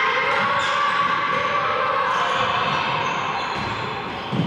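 A handball bouncing on the wooden floor of a large sports hall during play, the bounces ringing in the hall among the general noise of the game.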